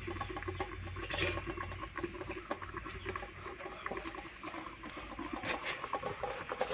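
Scattered light crackling and clicking from the wood fire under an iron kadai, with a cloth rubbing and scraping on the kadai's steel cover plate as it is gripped to lift it.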